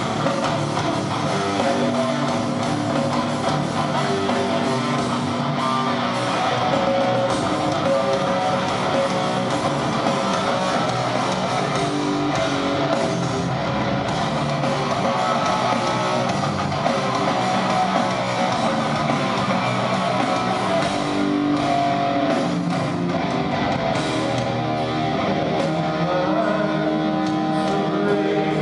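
Live rock band playing with electric guitars, a steady stretch of heavy rock music recorded at a concert.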